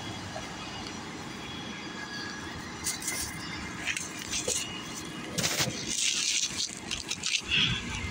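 Street noise with a city bus running at the curb close by, a steady drone with a few short rustles and knocks over it, mostly in the second half.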